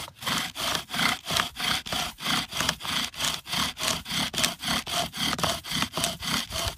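Bow drill at work: the bow sawing back and forth, about four to five strokes a second, spins a dry pine spindle against the wooden hearth board with a steady rasping rub. This is the burn-in stage, grinding a seat into the board that soon throws smoke and dust.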